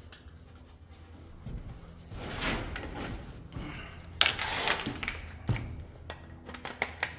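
A drill being handled, its chuck knocked against a wooden 2x4 to loosen a stuck bit: a noisy rattling burst about two seconds in and another about four seconds in that starts with a sharp knock, then scattered clicks.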